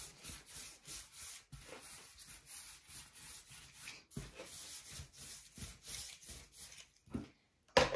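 Soft rhythmic rubbing of dough being rolled back and forth on a work surface, about two to three strokes a second, as a small ball of yeast dough is worked into a thin rope for braiding. A sharp knock just before the end.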